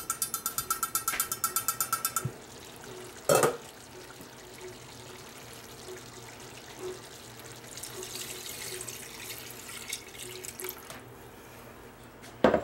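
Rapid, even clicking for about two seconds, then a sharp knock; about eight seconds in, reserved meat broth is poured from a bowl into a steel stockpot of goat meat, a soft splashing pour. Another sharp knock comes near the end.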